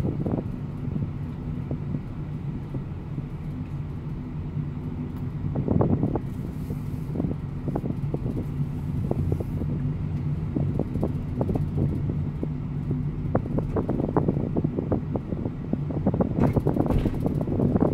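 Car driving slowly, heard from inside the cabin: a steady low engine hum with road noise, and many short knocks and rattles that come thicker about six seconds in and near the end.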